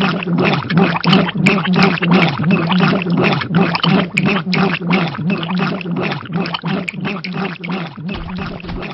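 Rhythmic gulping and glugging as two people chug drinks straight from bottles, about three swallows a second, loud and unbroken.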